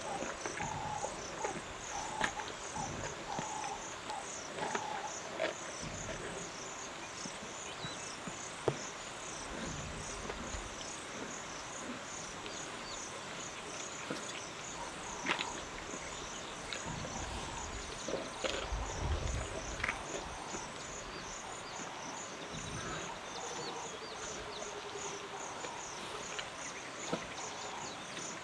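Lioness feeding on a warthog carcass: scattered sharp cracks and tearing from the bones and flesh, with a few low rumbles. Underneath, a steady chorus of insects chirping in an even, pulsing rhythm.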